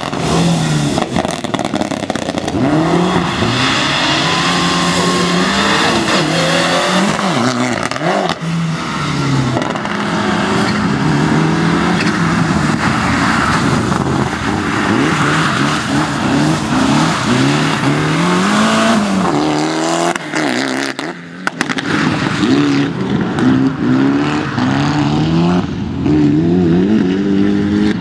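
Rally car engines revving hard, the pitch climbing and dropping again and again with each gear change, with a brief lull about twenty seconds in.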